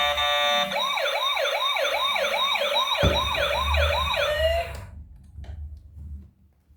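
Electronic toy siren: a brief steady tone, then a quick wailing siren rising and falling just under three times a second, which cuts off a little under five seconds in.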